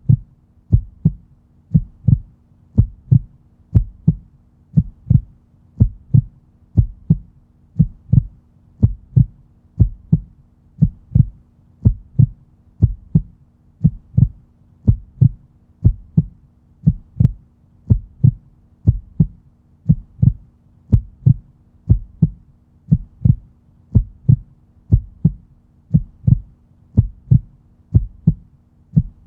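Heartbeat sound effect: deep, steady lub-dub double thumps, about one pair a second, over a faint low hum.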